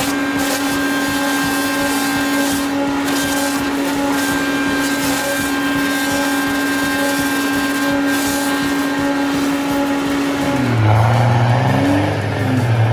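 A pole and post peeler running: a steady machine whine over the rasp of wood being stripped. Near the end it gives way to a lower engine note that rises and falls.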